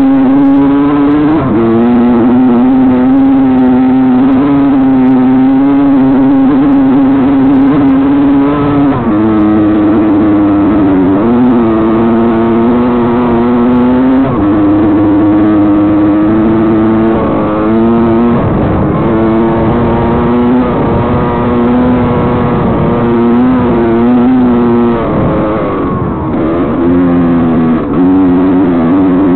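Dirt bike engine running hard while riding. It holds a steady high note that steps up and down in pitch every few seconds and turns rougher for a few seconds past the middle.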